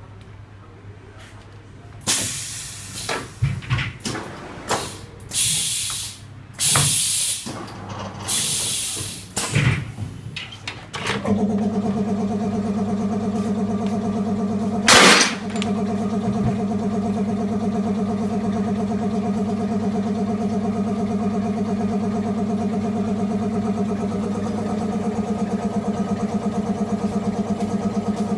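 Automatic glass-cutting machine at work: a run of short air hisses, then, about eleven seconds in, a steady pulsing machine drone that keeps running, with one loud sharp burst a few seconds after it starts.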